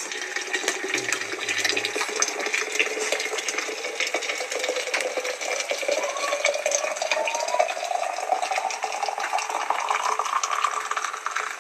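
Liquid poured in a steady stream from a large kettle into a steel vacuum flask, the pitch of the filling rising slowly as the flask fills up.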